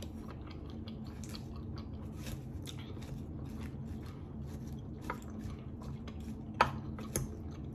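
Close-up chewing of barbecue chicken wings: wet mouth sounds and small crunches over a steady low hum. A sharp clink about two-thirds in, with a lighter one just after, fits the fork striking the glass salad bowl.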